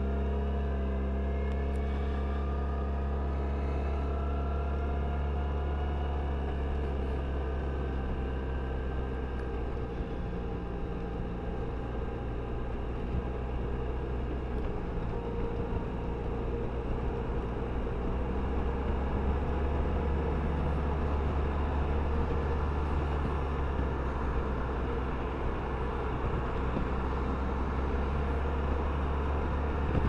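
Touring motorcycle accelerating up an on-ramp onto the interstate: the engine note rises over the first few seconds, then settles into a steady run of engine drone and wind rush at highway speed.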